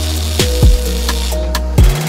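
Background music: an electronic track with deep sustained bass notes, thumping kicks that drop in pitch, and crisp high percussion ticks.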